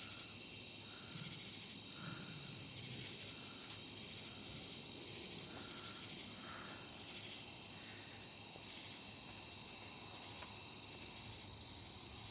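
Night insect chorus: a steady high-pitched cricket trill, with a lower chirp repeating about once a second for the first several seconds.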